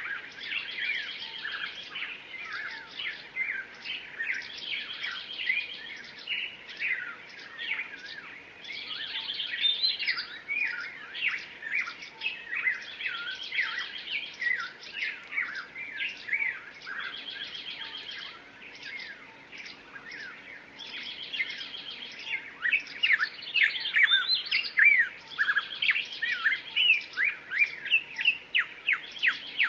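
Songbirds chirping and singing in a dense chorus of short chirps, trills and quick sweeping notes. It grows louder about two-thirds of the way through, with rapid repeated notes.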